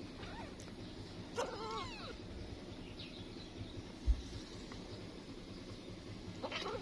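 Nursing kitten giving a quick run of small, high squeaky mews about one and a half seconds in, the kind of squeal kittens make when jostling each other at the teats. A faint low hum underneath and a soft thump near the end of the fourth second.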